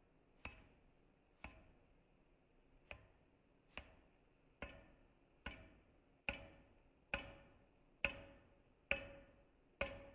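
Hand hammer striking a red-hot steel spearhead blank on an anvil at a steady pace of just over one blow a second, about a dozen blows, each with a short metallic ring. The blows get harder about halfway through.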